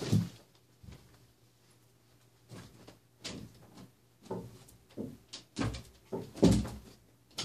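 Irregular short knocks and clatters of objects being handled and moved, about a dozen of them, the loudest about six and a half seconds in.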